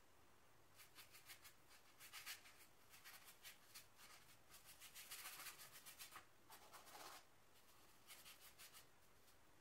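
Quiet scratchy strokes of a painting tool dragging acrylic paint across a canvas board. They come in short quick runs with pauses between, and the longest, loudest rasp comes about five seconds in.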